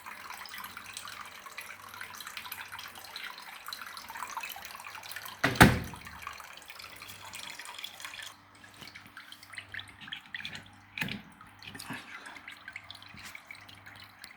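Water running and splashing, cutting off suddenly about eight seconds in and followed by scattered drips. A single loud knock comes about five and a half seconds in.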